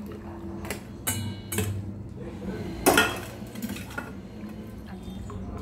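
Steel cooking pot clinking against a stainless-steel mesh strainer and bowl as boiled vermicelli and its water are tipped in to drain. A few sharp metallic clinks, the loudest about three seconds in.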